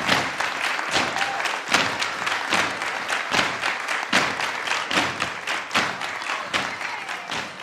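Applause from a group of people, with the claps falling into a steady rhythm of about two to three a second. It grows quieter toward the end.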